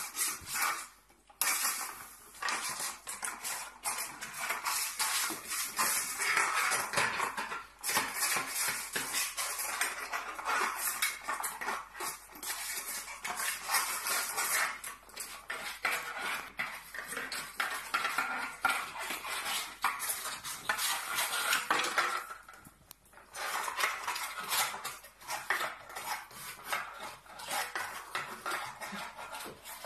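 A pug eating from a small food bowl on a tile floor, the bowl rattling and scraping against the tiles as the dog noses it along, in a dense run of clicks and clatters with two brief lulls.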